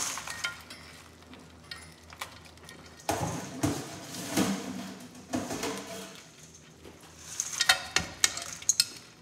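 Crawfish shells clattering as a batch is tipped from a wire-mesh strainer into a metal pan and pushed around, in several bursts of rattling and clicking. The densest, loudest run of clicks comes near the end.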